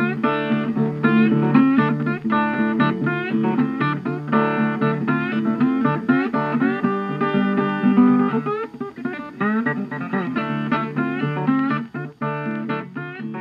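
Background music: guitar with quickly plucked notes, starting to fade near the end.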